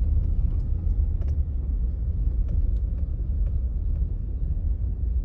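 Steady low rumble of a car's engine and road noise heard from inside the cabin as the car creeps along, with a few faint ticks.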